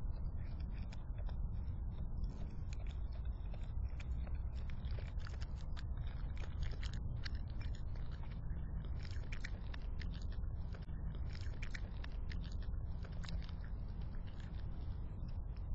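Raccoon chewing and crunching leftover chicken scraps close to the microphone: a busy run of small wet clicks and crunches over a steady low hum.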